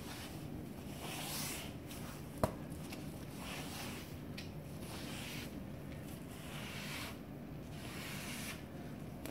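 Damp sponge rubbing across tile, wiping off grout haze in repeated swishing strokes about one a second. A single sharp click about two and a half seconds in.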